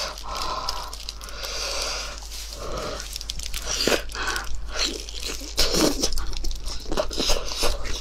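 Close-up eating sounds of a whole kiln-roasted chicken: the meat is torn apart by gloved hands, then bitten and chewed with quick wet clicks and smacks.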